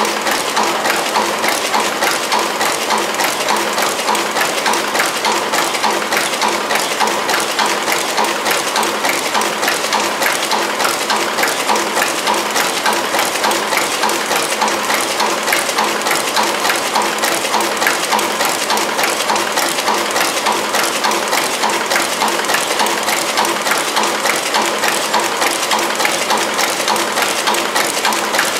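DXDC15A coffee bag packing machine running at speed: a steady, rapid clatter of many small metallic clicks, pulsing in a regular rhythm.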